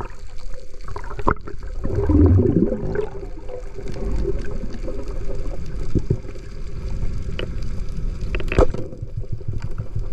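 Water heard underwater through a camera housing: muffled sloshing and gurgling over a faint steady hum, with a louder bubbly gurgle about two seconds in and a few sharp clicks, the loudest near the end.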